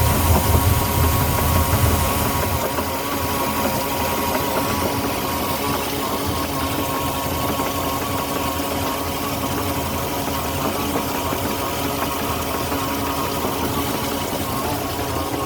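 Indmar 5.7 L V8 inboard engine of a 2008 Moomba boat, running steadily with a constant whine over the engine note. The deep rumble eases off about two and a half seconds in.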